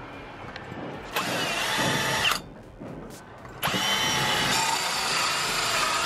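Power drill running in two bursts: about a second of running starting a second in, a short pause, then running steadily again from about three and a half seconds on, with a high whine over the noise.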